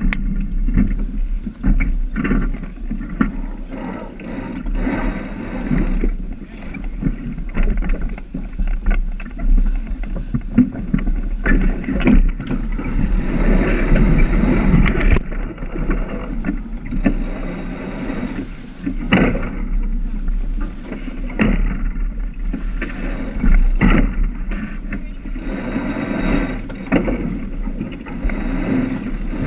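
Wind and water noise aboard a J/105 keelboat under sail: wind buffeting the microphone with a low rumble, and a rushing hiss of water along the hull that swells and eases. A few sharp knocks break through now and then.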